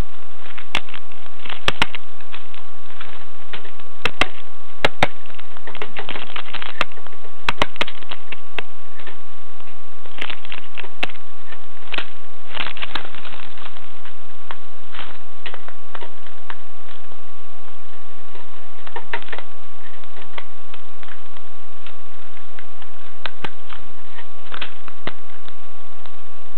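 Blue jay pecking in a tray feeder of seed and grit: irregular sharp taps of its bill, coming in quick clusters in the first half and more sparsely later. A steady thin whine runs underneath.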